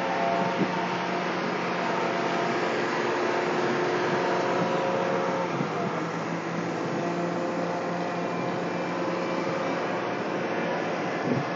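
Freight train of BNSF covered hopper cars rolling past close by: steady noise of steel wheels running on the rails, with steady humming tones over it.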